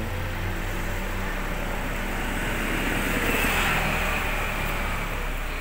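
A motor vehicle passing by on the street: its engine and tyre noise swells to a peak about three and a half seconds in, then fades, over a steady low hum.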